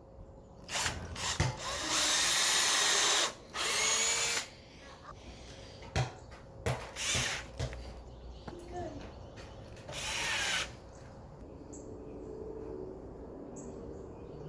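Power drill running in several short bursts, its motor pitch rising and falling as it spins up and slows. The longest run is about 2 seconds in, with shorter ones around 4 and 10 seconds.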